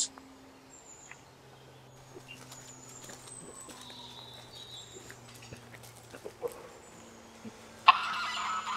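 Faint high bird chirps and a few small clicks, then about a second before the end farmyard fowl suddenly start calling loudly, in a steady honking racket.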